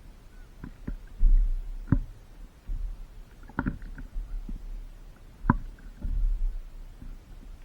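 Wind rumbling and gusting on the microphone, with a handful of sharp knocks scattered through it.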